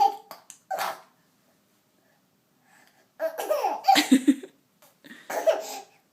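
A baby laughing in bursts: a couple of short ones at the start, then a longer bout of laughter about three seconds in and a shorter one near the end.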